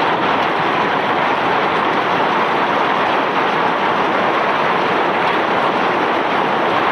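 Self-unloading barge discharging bulk rock and ore: a steady, even rushing noise with no breaks.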